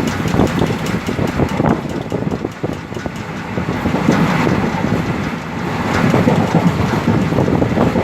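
Indian Railways passenger coach running at speed: the wheels clickety-clack over the track joints with a continuous rumble underneath.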